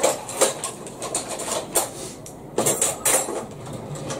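Kitchenware being handled: a string of irregular clinks and knocks, busiest near the end.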